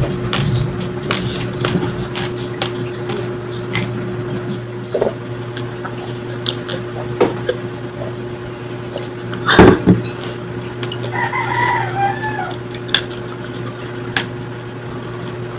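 Small close-miked mouth and handling clicks over a steady low hum, with a drink of water from a glass and a louder knock just before ten seconds. A rooster crows in the background for about a second and a half a little past the middle.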